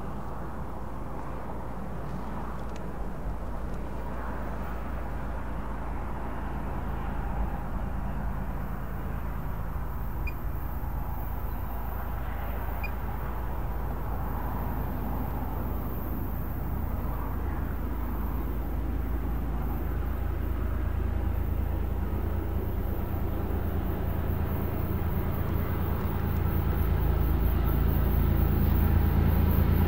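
Diesel locomotives leading a BNSF double-stack container train drawing nearer, their engines making a low, steady drone that grows gradually louder.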